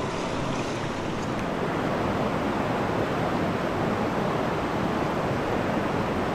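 Steady rush of a shallow, rocky river running over stones in fast, bubbly white water.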